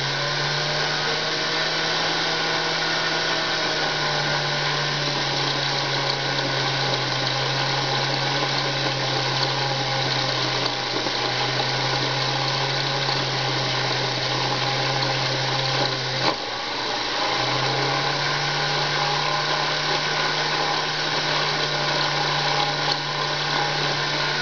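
Unimat SL miniature lathe running, its motor giving a steady low hum with a whirring hiss while it takes a light cut on a copper welding contact tip. About 16 seconds in there is a sharp click and the hum drops out for about a second, then it runs on steadily.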